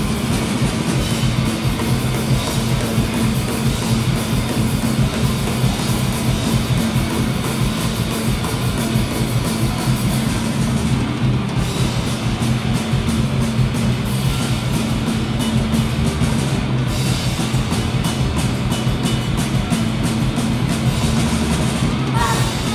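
A heavy metal band playing live: distorted electric guitar chords over rapid drumming, loud and dense throughout, with a higher melodic line coming in near the end.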